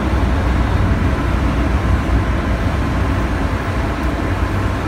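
Steady low rumble of a warship's machinery running as the ship comes alongside the quay.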